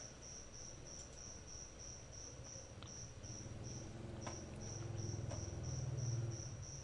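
A cricket chirping steadily in faint background, an evenly pulsing high chirp, with a low hum swelling and fading between about four and six seconds in and a few faint clicks.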